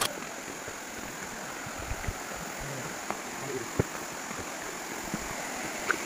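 Steady rushing of a small forest waterfall and stream, with a few short knocks of footfalls on the dirt trail.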